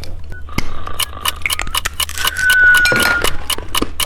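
Hard dice-shaped candies clicking and clinking, in a rapid run of sharp clicks several times a second.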